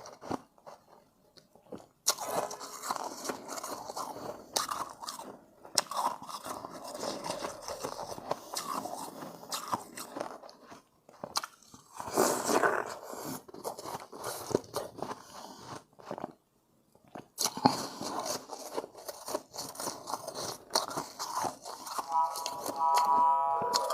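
Refrozen shave ice being bitten and chewed close to the microphone: dense, crackly crunching in bouts, with brief pauses between bites. Near the end, a steady held tone comes in under the crunching.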